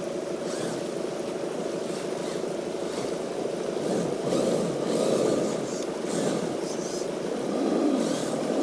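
A radio-controlled truck's motor and drivetrain whirring steadily, swelling louder twice as the throttle is opened.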